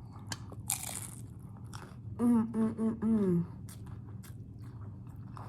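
Crunching bites and chewing of a hard-shell taco, with a noisy crunch about a second in. A short hummed voice sound, three flat notes and a falling one, comes about two seconds in.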